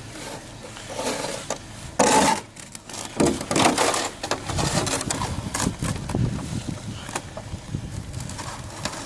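Snow being scraped and cleared: irregular scraping strokes, the loudest about two seconds in.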